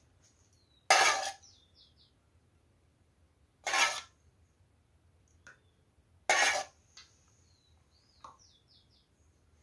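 A metal spoon clinking against metal pans three times, about two and a half seconds apart, as spoonfuls of lard are scooped from one pan and tipped into a saucepan of water. Fainter ticks of the spoon come in between.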